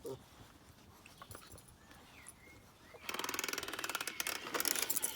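A puppy's noise-making toy ball rattling and jingling as it moves. It starts about three seconds in as a fast, dense rattle, after a few faint clicks.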